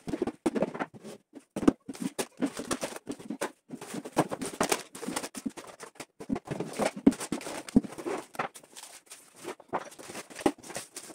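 Food packets and jars being taken out of a kitchen cupboard. Quick, irregular knocks and clatters against the shelf, mixed with the rustle of plastic packaging.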